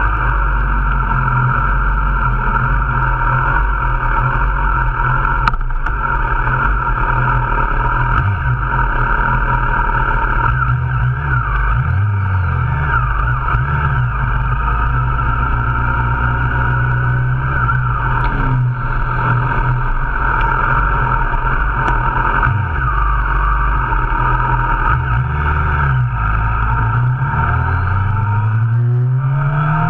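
Several motorcycle engines running loudly through their exhausts, holding a steady idle with short revs now and then, and one engine revving up near the end.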